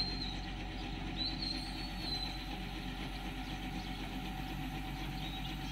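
Diesel engine of a truck-mounted mobile crane running steadily, with two brief high-pitched squeaks in the first two seconds.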